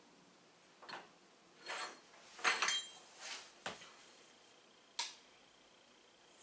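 Small metal parts clinking and clattering as they are handled, about six separate knocks and rattles, the loudest a cluster with a brief ring about two and a half seconds in.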